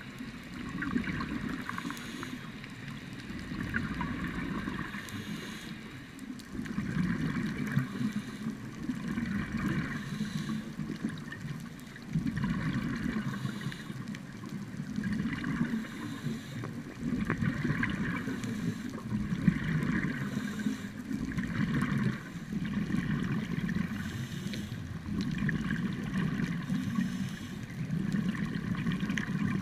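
Scuba diver's regulator breathing heard underwater through a camera housing: bursts of exhaled bubbles gurgling and rumbling in a slow cycle that repeats every few seconds.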